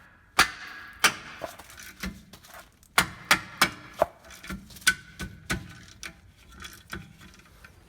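Hand ratchet with an Allen socket loosening a rear brake caliper bolt on a 2005 Sprinter: a string of irregular metallic clicks and clinks, a few louder ones ringing briefly.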